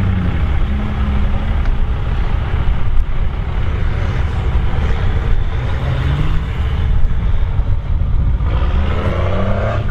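1997 Dodge Ram 2500's 5.9-litre Cummins inline-six turbodiesel running under load through straight exhaust stacks, its pitch rising and falling as the truck works through shallow water and wet sand, with the tyres churning and splashing.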